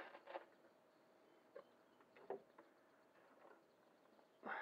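Near silence with a few faint, brief clicks and taps, and a short louder rustle just before the end.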